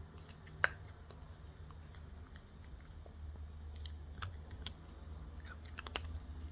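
A pet chewing food from a bowl: scattered small crunches and clicks, with one sharper click about half a second in, over a steady low hum.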